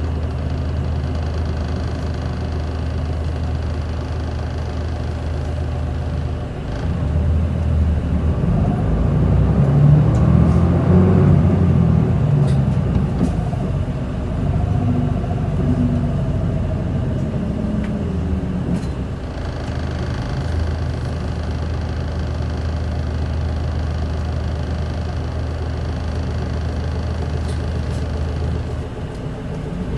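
Isuzu Erga city bus's straight-six diesel heard from inside the cabin: a steady low hum, then from about seven seconds in the engine works harder and gets louder, with a whine that rises and then eases off, before it settles back to a steady hum.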